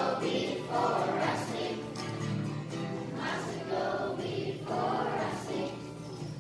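Group of schoolchildren singing a holiday song together in a choir, in phrases about a second long.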